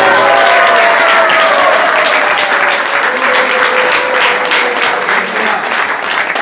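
Audience applauding. Voices call out over the clapping in the first two seconds, and the clapping slowly thins toward the end.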